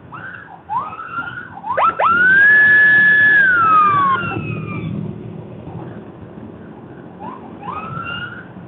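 Police escort siren giving short rising whoops, then one long wail about two seconds in that rises fast, holds and falls away, over steady engine and road noise.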